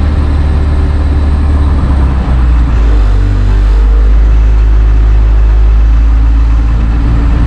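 International 3800 school bus's T444E diesel V8 idling steadily, its note shifting about two seconds in as the idle speed is adjusted with the cruise-control switch.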